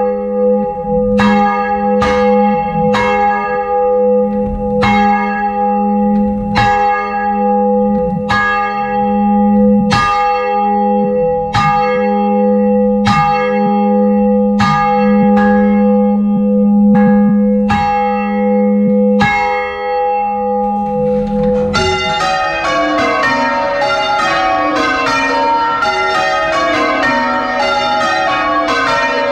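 Church tower bells heard from inside the bell chamber of a ring of six with the tenor in A♭: first one bell sounds over and over, about once a second, with a strong low hum held between strokes. About 22 seconds in, it gives way abruptly to a dense, tumbling peal of many bells at differing pitches, the ringing of changes.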